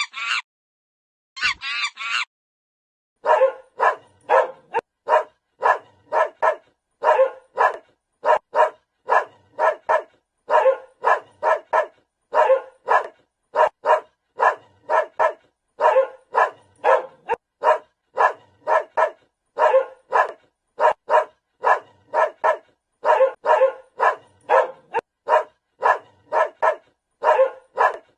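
Two short honking calls in the first two seconds, then, after a brief pause, a dog barking over and over at about two barks a second.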